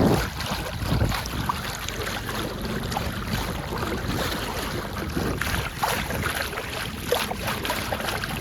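Wind buffeting the microphone over the rush and splash of water along a sailboat's hull while it is underway.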